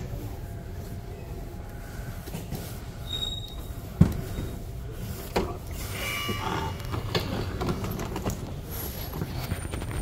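A station lift arriving at its landing: a steady low rumble, a sharp clunk about four seconds in, then brief high squeaks and rattles as the landing and car doors are opened.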